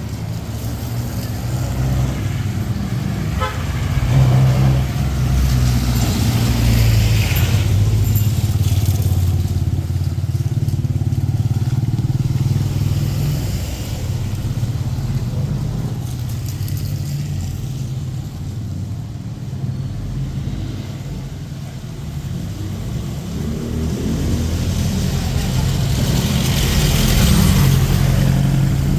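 Street traffic: motor vehicles running and passing close by. A steady low engine hum is joined by a rising and fading tyre hiss as vehicles go by, once about five seconds in and again near the end.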